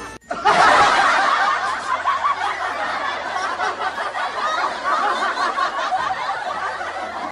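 Loud, continuous laughter, starting just after a brief gap at the very beginning.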